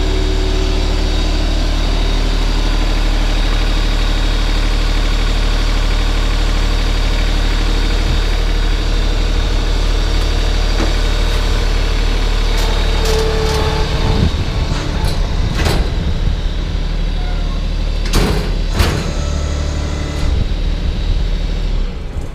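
Diesel engine of an LS tractor running steadily. In the second half, several sharp metallic clanks and knocks are heard over it.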